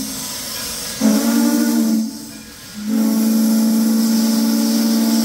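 Steam locomotive whistle on Frisco 1630, a 2-10-0 Decapod: a short blast about a second in, then a long blast from about three seconds in, over a steady hiss of steam.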